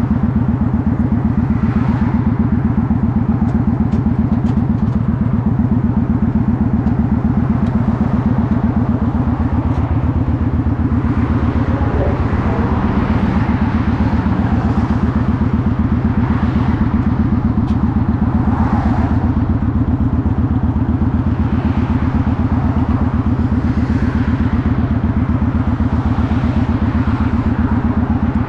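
Motorcycle engine running at a steady speed while riding, its exhaust a fast, even pulse.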